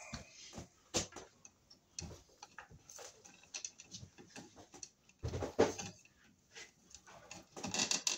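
Side cutters and pliers clicking and snipping at the copper wires and cable sheathing of an electrical cable at a plastic electrical box, in irregular short clicks with a louder cluster about five seconds in.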